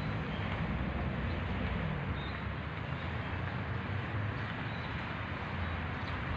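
Steady outdoor background of distant road traffic, an even low rumble with a few faint high chirps now and then.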